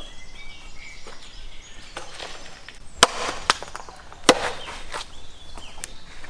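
Axe chopping lamb on a wooden stump chopping block: a few sharp chops, the loudest three coming between about three and four and a half seconds in. Birds chirp throughout.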